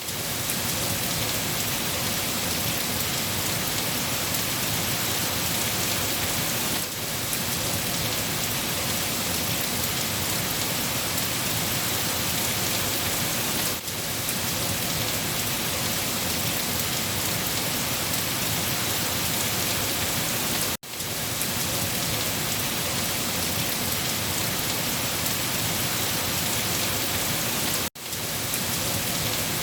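Steady, heavy rain hissing evenly. It dips out briefly about every seven seconds, twice almost to silence.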